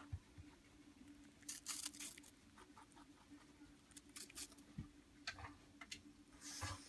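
Holland lop rabbit chewing and crunching apple in faint, irregular bursts, the loudest about two seconds in and near the end, over a faint steady hum.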